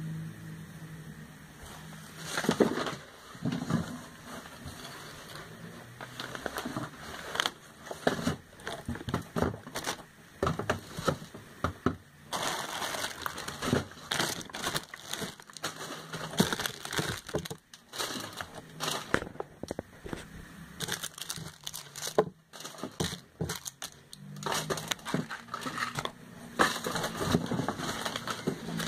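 Plastic bags and paper wrapping crinkling and rustling as products are unpacked from a box, in irregular bursts with small knocks of items being handled.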